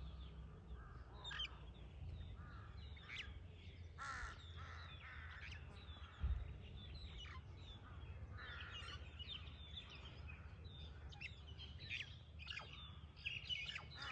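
Several birds calling and chirping, with many short, quick notes overlapping throughout over a steady low rumble, and a brief thump about six seconds in.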